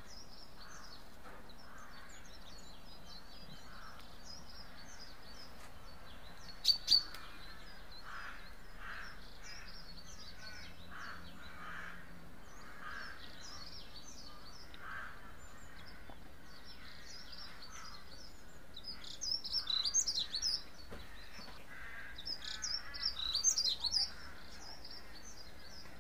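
Small birds chirping and singing over a steady low hiss. Two sharp clicks come close together about seven seconds in, and louder, rapid bursts of chirping come around nineteen to twenty seconds and again around twenty-three seconds.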